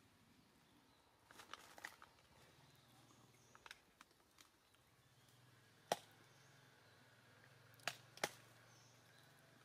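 Near silence broken by a handful of short, sharp clicks. The loudest comes about six seconds in, and two more follow close together near the end.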